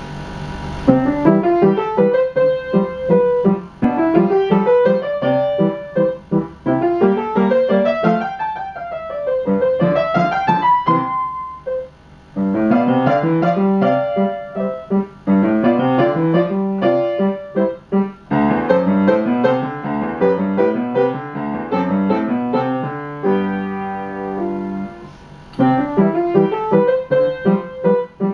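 Yamaha piano played with both hands: an elementary technique study of short rising note patterns that climb step by step up the keyboard and come back down, phrase after phrase, with a held chord about 23 seconds in.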